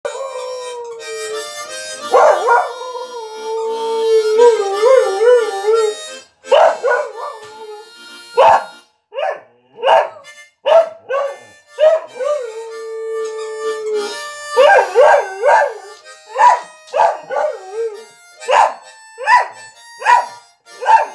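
Border collie howling, or 'singing', in a run of rising-and-falling cries with some longer held notes, and shorter yowls coming quickly in the second half.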